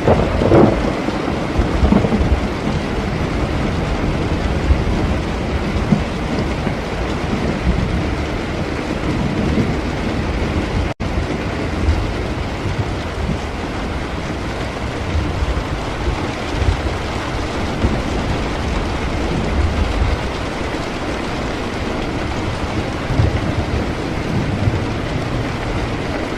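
Steady heavy rain with thunder rumbling low underneath. A louder peal comes about half a second in, and the sound drops out for an instant near the middle.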